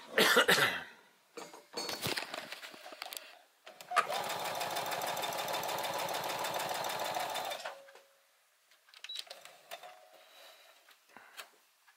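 Brother XR3340 computerized sewing machine stitching at a steady, rapid rhythm for almost four seconds on a test run after its seized bobbin-driveshaft bushing was freed and regreased and the bobbin timing reset; it runs without jamming. Rustling and clicks of fabric being handled come before and after the run.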